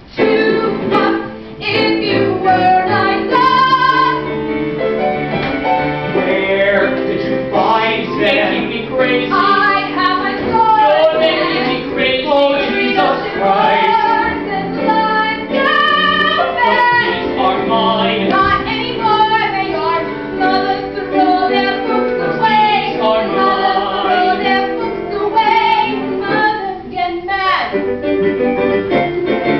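A live musical theatre song: a woman's voice sings over a small band that includes a cello, the music continuing without a break.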